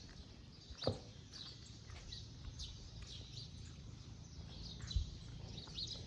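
Small birds chirping repeatedly in short high calls, with a brief low bump about five seconds in.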